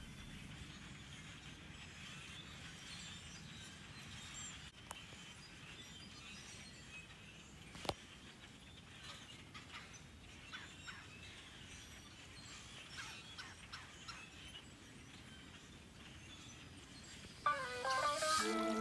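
Many birds chirping and calling together, faint over steady outdoor background noise, with one sharp click partway through. Music comes in near the end.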